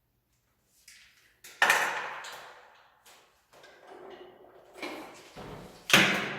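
Two sharp knocks or clatters, one about a second and a half in and a louder one near the end, each ringing away over about a second, with lighter handling noises between them.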